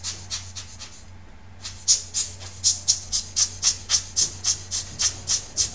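Rapid, even scraping strokes of a hand tool worked against a laptop cooling fan, about four a second. They pause briefly about a second in and resume louder. A steady low hum runs underneath.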